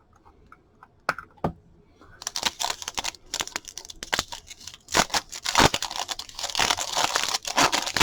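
Two light clicks, then from about two seconds in a continuous crinkling and tearing as a trading card pack's wrapper is ripped open.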